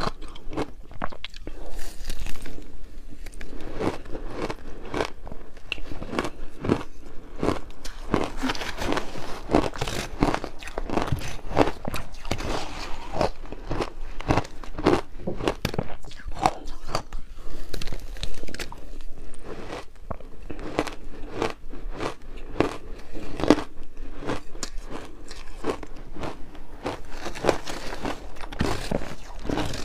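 Frozen flavoured ice being bitten and chewed, a close, continuous run of sharp crunches and cracks.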